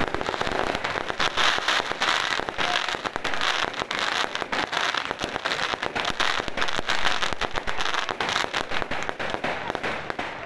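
Fireworks display: aerial shells bursting and crackling in a dense, unbroken run of pops and bangs.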